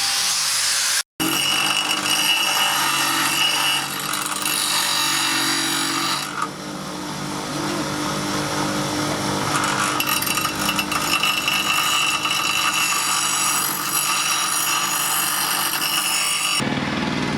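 A power tool working steel, a continuous abrasive grinding or cutting noise with a steady whine. It drops out for an instant about a second in, then carries on.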